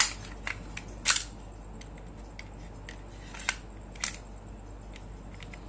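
Metal slide of a Glock 17 gas-blowback gel blaster being fitted back onto its frame: a sharp metallic click at the start, another about a second in, and two lighter clicks later as the slide and parts are seated and handled.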